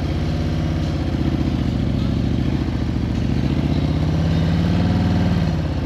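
Motorcycle engine running at low revs in first gear through a slow U-turn, held under light throttle. The pitch rises a little about four seconds in and drops back near the end.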